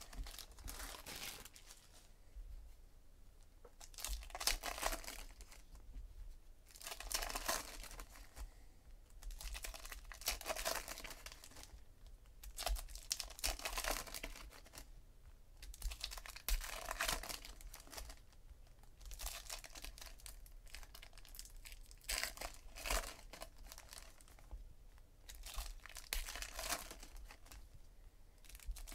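Foil trading-card pack wrappers being torn open and crinkled in the hands, in bursts about every three seconds.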